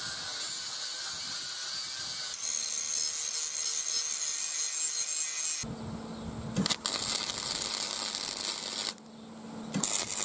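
An angle grinder's cut-off disc cutting through steel at the start, then a MIG welder arcing in short runs over the later part. There are abrupt jumps between them, with a brief drop in level near the end before the welding resumes.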